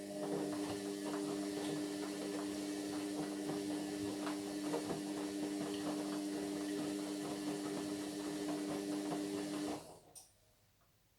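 Indesit MyTime washing machine running for about ten seconds, a steady motor hum with rattling and swishing over it, then stopping abruptly. A short click comes just before it starts and just after it stops.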